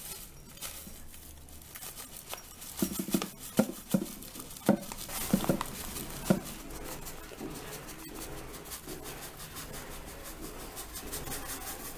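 A cluster of knocks and taps as coconut sugar is poured from a plastic bag into a glass bowl, about three to six seconds in, followed by a faint steady background.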